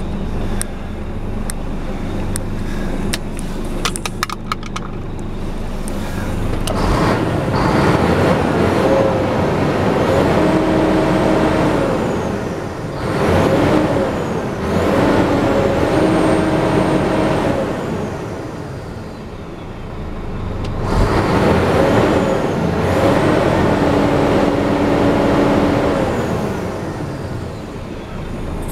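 Scania tipper's diesel engine heard from inside the cab, revved up and held around 2000 rpm, then falling back and revved up again a second time. A few sharp clicks come about four seconds in.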